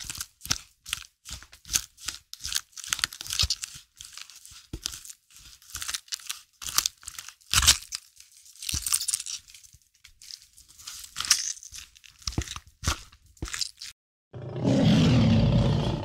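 Red squirrel gnawing and chewing a mushroom: quick, irregular runs of crunchy, tearing bites. In the last two seconds a louder, lower lion growl cuts in.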